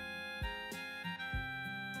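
Background instrumental music: a melody of short, separately struck notes over sustained lower notes.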